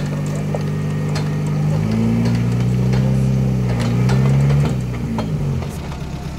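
Off-road vehicle's engine running under load with a whining, geared mechanical tone. It rises in pitch and level about two seconds in as the vehicle climbs out of the river up the bank, then drops away near the end.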